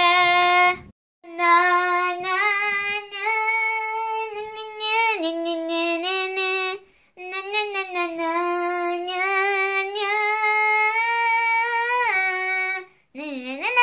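A high, childlike voice singing a wordless tune in long held notes that step up and down in pitch, with a few short breaks.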